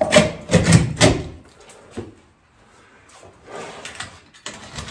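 Several quick knocks and bumps in the first second or so, then quieter rustling and shuffling.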